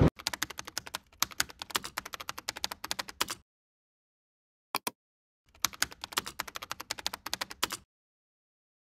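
Computer keyboard typing: rapid runs of key clicks, one of about three seconds and another of about two, with a brief double tap between them and dead silence in the gaps.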